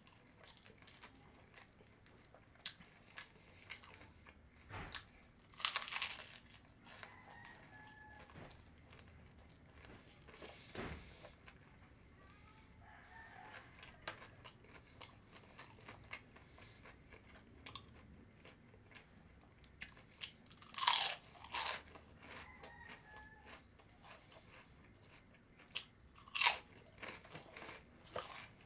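Close-up eating sounds: a person biting into and chewing crispy breaded fried chicken, with many small crackles and three loud crunching bites, about six seconds in, about twenty-one seconds in and about twenty-six seconds in.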